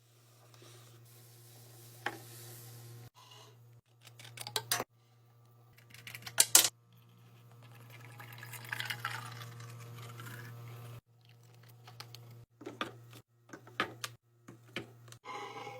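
Clicks, knocks and clinks of drink bottles, cans and snack containers being handled and set into a fridge, in short choppy bursts over a steady low hum. A longer hissing, splashy stretch comes in the middle.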